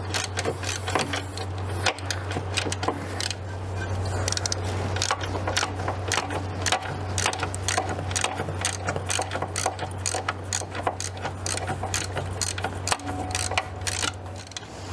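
Hand socket ratchet clicking in quick runs as a bolt is turned out, over a steady low hum.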